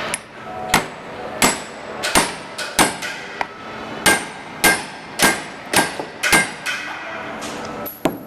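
Hammer blows on a seal-fitting tool, driving a seal into the disc holder of a tyre testing machine: about a dozen sharp strikes at a steady pace of roughly one and a half a second, each ringing briefly.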